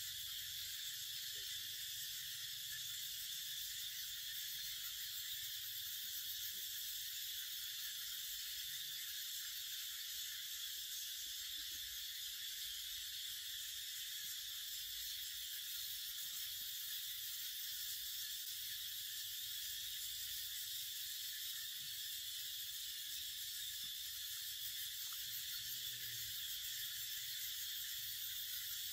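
Steady high-pitched hiss of a forest insect chorus, unchanging throughout.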